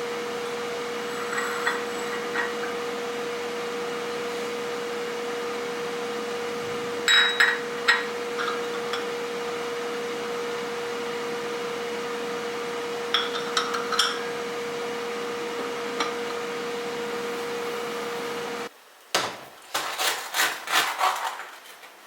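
A steady appliance hum with one held tone, over which kitchen items knock and clink a few times; the hum cuts off suddenly about 19 seconds in, followed by a quick run of knocks and clinks.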